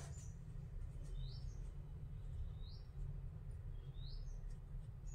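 A bird chirping, the same short rising chirp repeated about every second and a quarter, over a steady low hum.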